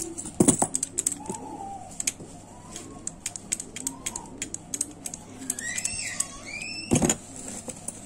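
Keys and a metal padlock being handled: a run of small metallic clicks and jingles, with two louder knocks about half a second in and near the end.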